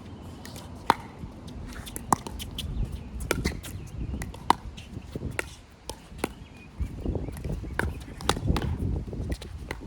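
Pickleball rally: sharp pops of paddles striking the plastic ball roughly every second, with smaller clicks and shoe scuffs between them. A low wind rumble on the microphone swells in the second half.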